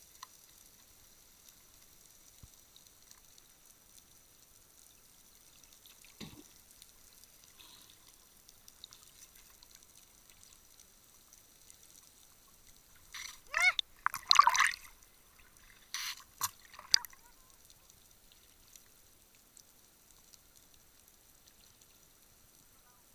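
Underwater water sounds close to an action camera near the surface: faint hiss, a faint knock about six seconds in, then a short cluster of loud gurgling, bubbling bloops that rise in pitch in the middle.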